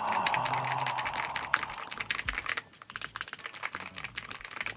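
Fast typing on a Keychron Q6 HE keyboard with magnetic Hall-effect switches: a dense run of keystrokes that breaks off briefly about halfway through, then carries on more sparsely.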